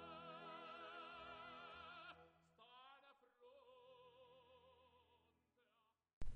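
Faint operatic singing as background music: long held notes with a wide vibrato, in two phrases with a gap between them. A sudden loud hit comes right at the end.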